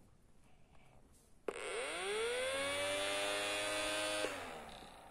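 Small DC toy motor with a plastic propeller from an electronics kit switched on about a second and a half in. Its whine rises quickly in pitch and holds steady, then power is cut near the end and it winds down. The propeller spins without lifting off, which the builder puts down to how the motor is wired to the battery.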